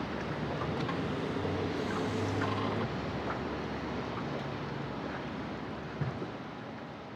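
Steady rushing wind-and-water noise with a low motor drone under it, fading toward the end.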